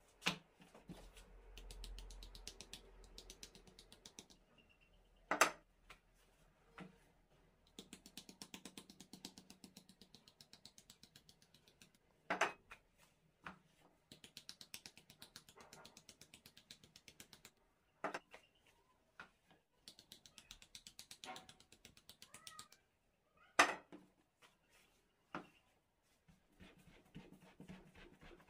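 Fast, even tapping and clattering of wood on a wooden board in runs of a few seconds, broken by single sharp knocks, from hand work on baklava dough or filling.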